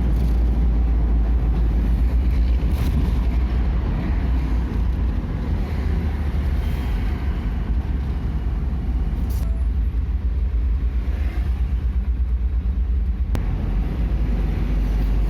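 A motor vehicle on the move: a steady, loud, low rumble of engine and road noise, which flutters rapidly for several seconds in the middle.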